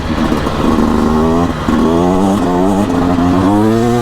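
2024 Beta RR 300's single-cylinder two-stroke engine pulling under acceleration, its pitch climbing, dropping back sharply, and climbing again about three times.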